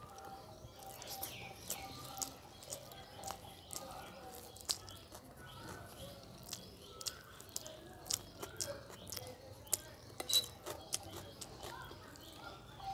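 Close-up eating sounds of rice and dal eaten by hand: chewing with many irregular wet mouth clicks and smacks.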